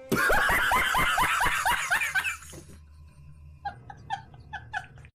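Laughter: a loud burst of quick, repeated laughs for about two and a half seconds, then softer chuckles near the end.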